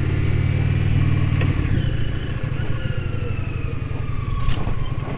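Indian Challenger motorcycle's V-twin engine running at low speed on a dirt track; the engine note eases off about a second and a half in. A short clatter is heard near the end.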